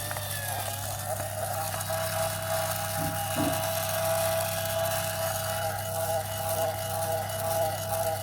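Small electric motor running steadily with a whine.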